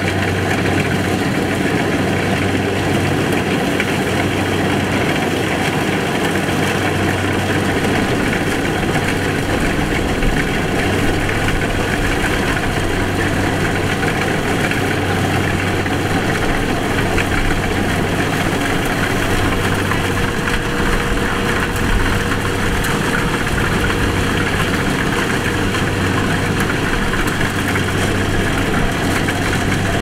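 Kubota combine harvester running steadily while cutting rice: a constant diesel engine hum mixed with the noise of its cutting and threshing machinery.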